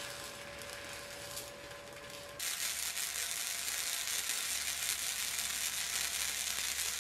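Flux-core wire welding arc crackling steadily, first with the wire stick-out too long, the crackle quieter with a steady hum under it; about two and a half seconds in it cuts to a louder, even sizzle as the arc runs with a short stick-out.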